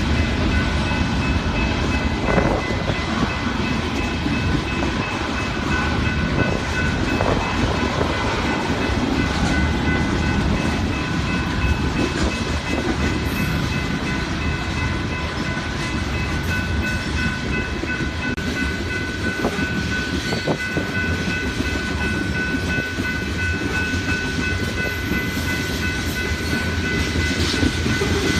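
Freight train rolling past: a steady rumble of wheels on rail with some clickety-clack, and steady high ringing tones over it.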